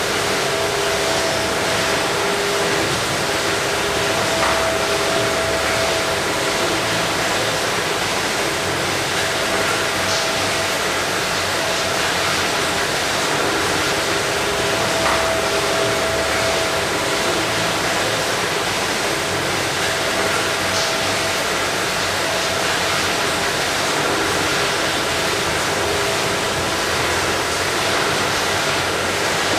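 Meyn automatic poultry evisceration line running: a steady rushing noise of machinery and water spray, with a faint tone that comes and goes and a few scattered clicks.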